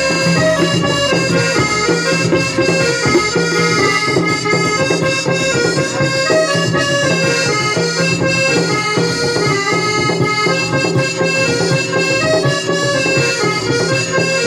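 Instrumental interlude of Odia folk-theatre music between sung verses: a harmonium plays a stepping melody over a steady drone, with drumming underneath.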